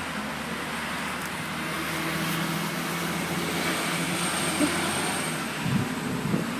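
Steady vehicle noise: a low hum over an even hiss, with a few low bumps near the end.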